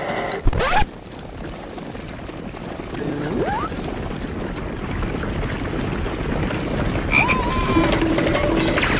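Frogs croaking.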